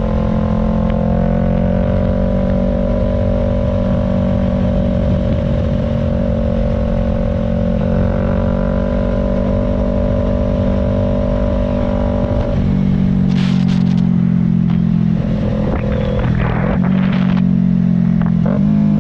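2025 Yamaha R3's parallel-twin engine through an aftermarket Arashi exhaust, running at steady revs for about twelve seconds. The note then drops, with a few clattery sounds, and rises again near the end.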